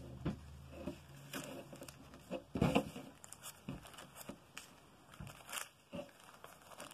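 Paper pattern and cloth rustling and crinkling softly as a pinned paper collar pattern is unpinned and lifted off the fabric pieces, with scattered light taps on the table, the strongest a little over halfway in.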